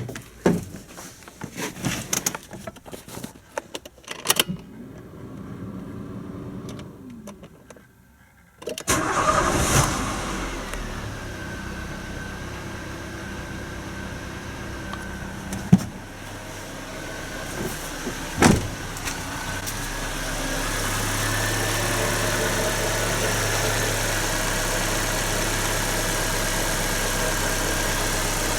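A few sharp clicks and knocks, then about nine seconds in the Nissan CR14DE 1.4-litre four-cylinder engine starts, briefly runs fast with a falling whine, and settles into a steady idle, with two sharp clicks partway through. The engine has just had its valve clearances reset, with four exhaust-valve tappets replaced by thicker ones to cure a knock.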